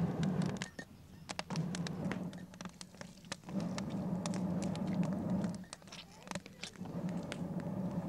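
Wood fire crackling inside a clay furnace shaft, with sharp pops and snaps all through. Over it come long rushing surges of air, each about two seconds long, repeating about every two and a half to three seconds.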